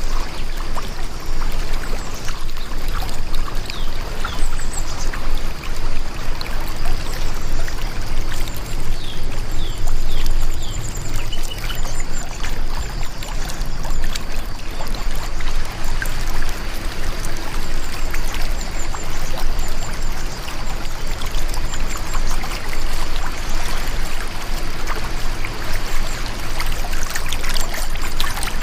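Heavy rain falling steadily on a window: a dense, even wash of rain with scattered individual drop ticks.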